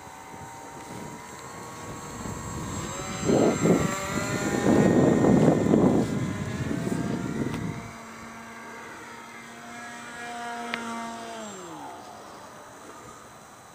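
Radio-controlled model airplane's motor and propeller whining as it flies around, its pitch gliding up and down and dropping steeply about eleven seconds in. A loud low rushing noise covers it from about three to eight seconds in.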